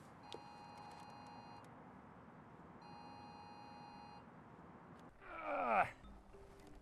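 A phone alert tone sounds twice, each a steady multi-tone beep lasting about a second and a half. About five seconds in, a loud groan falls steeply in pitch.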